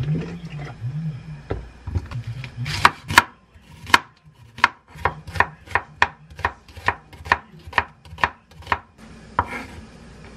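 Chef's knife slicing an onion on a wooden cutting board: a run of sharp, even chops about three a second for some six seconds, with one last chop near the end. Softer handling sounds come before the chopping starts.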